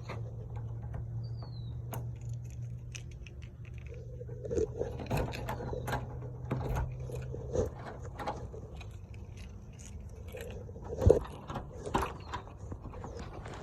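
Keys jangling and small objects being handled, with scattered clicks and knocks, over a steady low hum that stops about eight seconds in.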